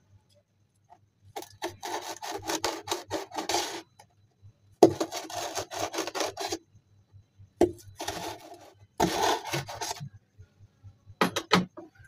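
A pointed metal tool twisted into the side of a corrugated cardboard box to bore small holes, giving rough scraping bursts. About five bursts of a second or two each, with short gaps between.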